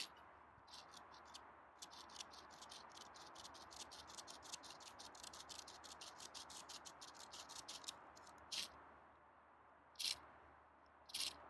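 A bare saw blade, held in a gloved hand, sawing through a green young pine branch in quick, even strokes, about four a second, for several seconds; it stops, then a few single louder strokes follow near the end.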